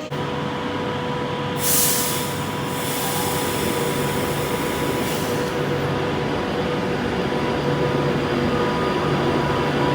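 Passenger train at a station platform, running with a steady hum and whine. About two seconds in, a loud hiss starts and lasts about four seconds.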